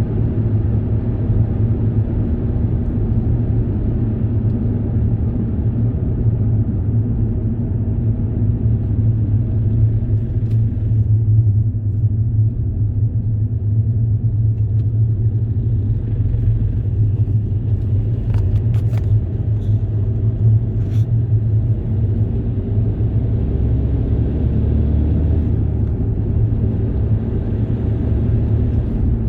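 Steady low rumble of a moving vehicle, running evenly throughout, with a few faint clicks a little past the middle.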